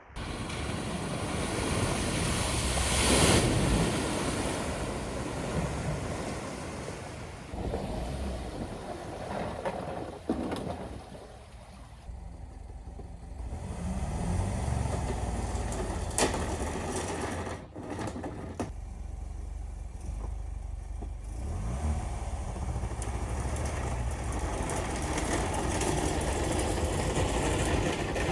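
A struggling Volvo's engine running, revved up and down now and then, after it has gone through flood water.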